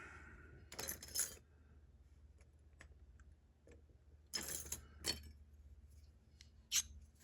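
Small metal lock pins clinking as the barrel driver pins are worked out of a disassembled Ruko Combi 2 lock. The clinks come in short clusters about a second in, just past four seconds and near the end, with light ticks between them.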